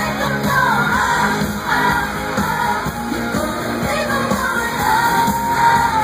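Live pop concert music: a woman singing over a loud band, ending on a long held note, with the crowd yelling and cheering along.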